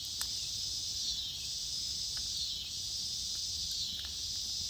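Insect chorus of crickets or similar insects: a steady high-pitched chirring that swells and dips in slow waves about every second and a half. A few faint clicks come through underneath.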